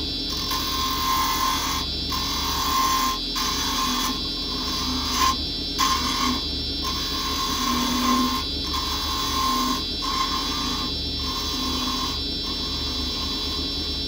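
Wood lathe running while a carbide-tipped chisel makes light cuts on a spinning beech blank. The hiss of the cut breaks off briefly about every second as the tool comes away, over a steady whine of the running machinery.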